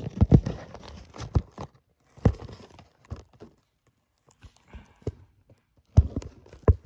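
Sharp taps and knocks from cards and metal card tins being handled and set on a tabletop. A quick run of them comes in the first second and a half, a few more follow spaced out, and two strong knocks fall near the end.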